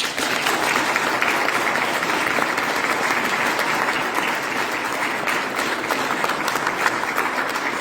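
Audience applauding steadily: a dense patter of many hands clapping at once, starting just before and fading soon after.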